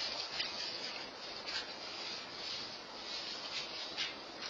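Steady rushing storm noise from a tornado, wind and rain on the building, with irregular scratchy crackles.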